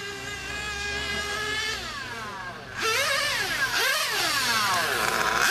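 Radio-controlled cars driving hard, several motors rising and falling in pitch over one another as they speed up and slow down, louder from about three seconds in.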